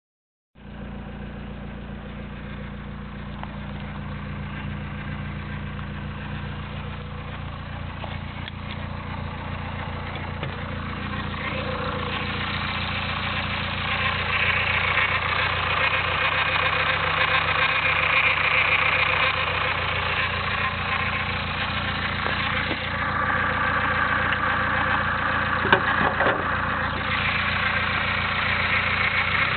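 Nissan SR20DET turbocharged four-cylinder engine idling with a grinding noise from the front of the cylinder head, where the VTC (variable valve timing) sprocket sits; the noise occurs only at idle. The grinding grows louder about halfway through, and there is a single sharp knock near the end.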